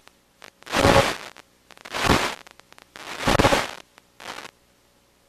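Four short bursts of crackling noise, about a second apart: the first three loud, the last shorter and fainter, with a few sharp clicks between them.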